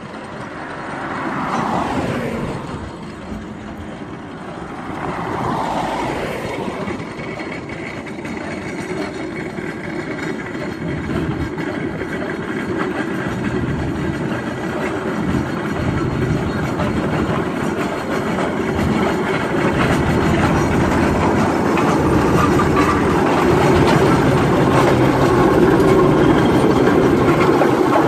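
Aveling & Porter steam road roller approaching and passing close by, its steam engine running and its steel rolls rumbling on the tarmac, growing steadily louder. Two vehicles swish past, about two and six seconds in.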